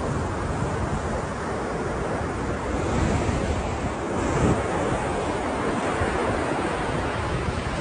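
Ocean surf: a continuous rush of breaking waves that swells a little about three seconds in and again around four and a half seconds, with wind buffeting the microphone.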